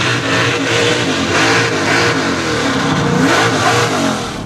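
Chasin Paper mega mud truck's small-block Chevy engine revving hard, the revs rising and falling again and again as the truck drives through the dirt pit. It cuts off just before the end.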